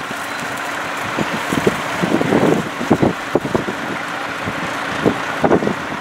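Wind buffeting the microphone in irregular gusts, over the distant steady running of vintage tractor engines pulling ploughs.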